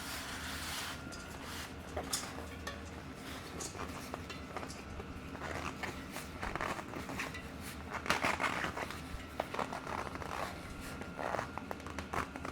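Irregular clicks, scrapes and rubbing from hands working on a bicycle wheel and tire. The sounds grow busier about halfway through.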